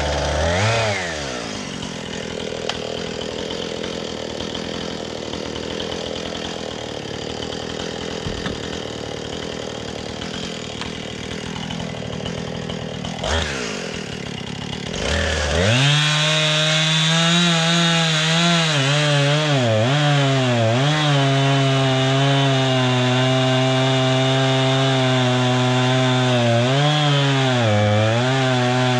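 Norwood MX34 portable bandsaw mill running. About halfway through, a louder, steady pitched whine sets in and holds, dipping in pitch now and then as the saw loads in the log.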